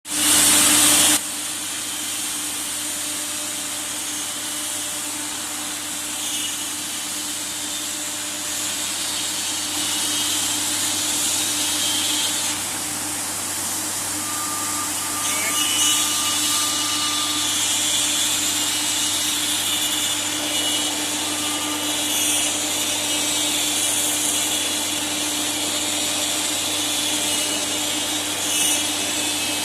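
Automatic tool-change CNC router running, its spindle and dust extraction making a steady mechanical hum with a changing high-pitched whine as it works wood. A loud hiss sounds for about the first second.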